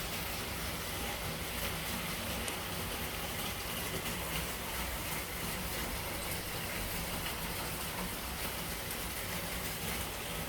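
Steady hiss of rain over a low, constant rumble, with no distinct thunderclap.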